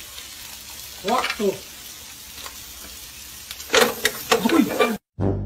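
Food frying and sizzling steadily in a pan over a gas flame, with a voice crying out twice, about a second in and again near the end. Music cuts in at the very end.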